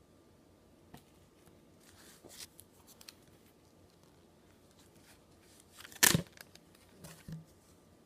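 Comic books being handled: scattered short rustles and crinkles, with one loud, sharp crinkle about six seconds in and a smaller one about a second later.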